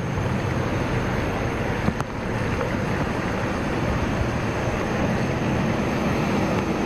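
Steady wind rumble on the microphone over an outdoor noise bed, with a brief knock about two seconds in.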